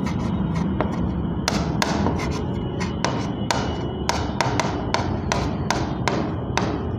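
Stylus tapping and clicking against the glass of an interactive whiteboard while words are handwritten: about fifteen sharp, irregular taps over a steady low hum.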